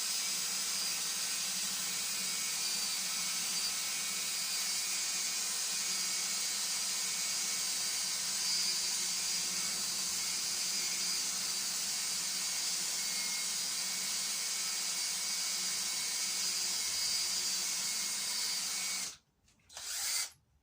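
Small power tool running steadily while a stainless steel bolt head is polished on 1500-grit paper with a little oil: an even, hissing whir that stops abruptly about 19 seconds in, followed by one short burst just before the end.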